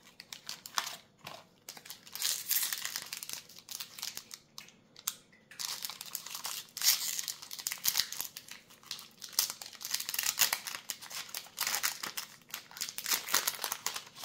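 A Magic: The Gathering collector booster pack's foil wrapper being torn open and crinkled in irregular crackles, starting about two seconds in.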